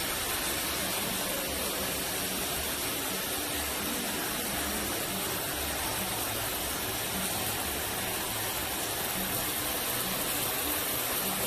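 Artificial rain from a leak-test rain rig pouring steadily onto a car's roof and rear window: an even hiss of falling water, a water test to find where the trunk leaks.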